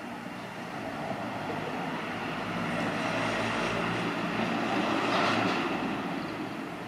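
Rumble of a passing vehicle, swelling to its loudest about five seconds in and then easing off.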